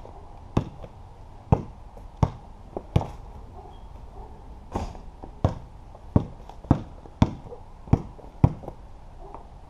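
A basketball bouncing on a concrete patio as it is dribbled: about a dozen sharp thuds, one roughly every half to three-quarters of a second, with a break of under two seconds after the first four.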